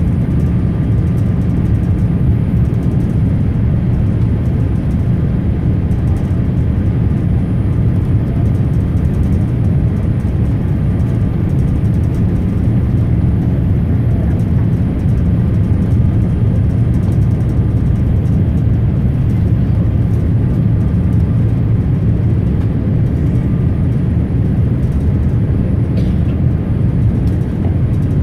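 Steady cabin noise inside a Boeing 787-8 Dreamliner descending on approach, a deep even rumble of its GE GEnx-1B engines and airflow with a faint steady whine above it.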